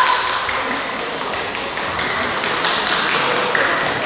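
Light, irregular tapping and clacking of bamboo shinai and footwork as two kendo fighters press against each other at close range.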